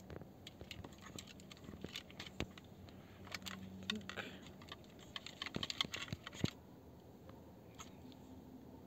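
Light plastic clicks and taps from handling a fuel pump module's housing and pushing the wire terminal onto the pump, thickest about five to six and a half seconds in.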